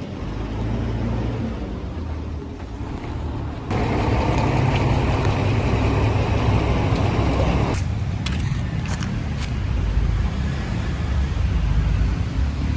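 Steady low road rumble from a moving vehicle, tyre and engine noise. It gets suddenly louder and brighter about four seconds in and changes again about eight seconds in, with a few short clicks.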